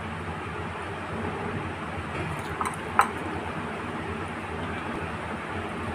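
A few light clinks of a spoon against a bowl over a steady background hiss, the sharpest about three seconds in.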